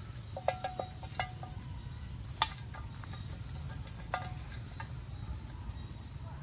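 A tin can being handled by a monkey: sharp clinks and knocks, a quick cluster about half a second in, then single ones near two and a half and four seconds, several with a brief metallic ring, over a steady low rumble.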